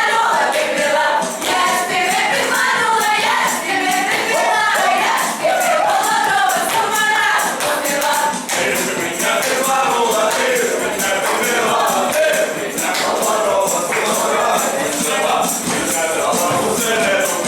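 A group of voices singing a lively Ukrainian folk song, with a tambourine beating out a steady rhythm.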